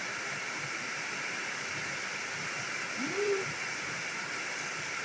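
Heavy rain falling steadily: a constant hiss. About three seconds in, a short hoot-like sound rises and falls.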